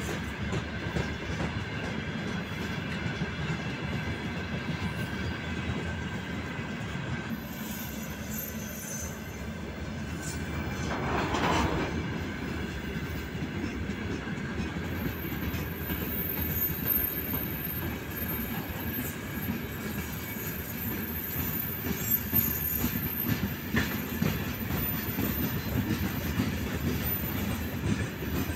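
Freight train of open-top gondola wagons rolling past, a steady rumble of steel wheels on the rails that swells for a moment about eleven seconds in. A thin high-pitched wheel squeal rides over it.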